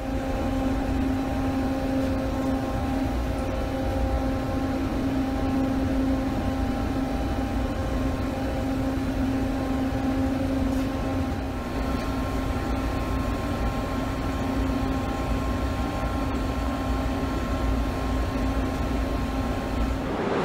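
Steady machine drone: one constant pitch with overtones over an even rushing hiss and low rumble, unchanging throughout with no knocks or breaks.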